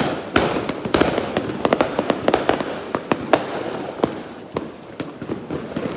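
Fireworks going off in a rapid string of sharp cracks and bangs, dense at first and thinning out toward the end.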